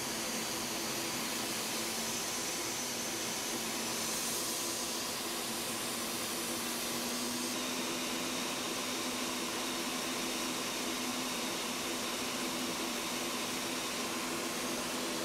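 Steady rush of jet engine and airflow noise inside a jet aircraft's cockpit in flight, with a faint steady hum underneath that shifts slightly higher about two and a half seconds in.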